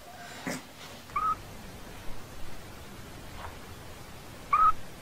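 A puppy giving two short, high squeaks, one about a second in and one near the end.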